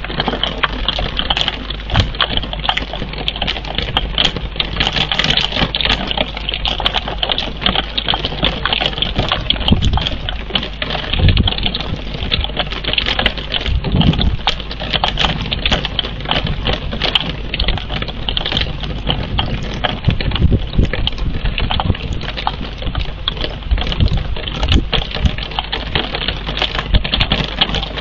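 Steady rain, with a dense, irregular ticking of individual drops.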